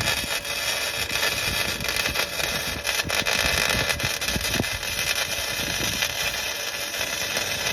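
Welding arc sizzling and crackling steadily as exhaust pipe is welded to a Flowmaster Super 44 muffler. It starts and stops abruptly.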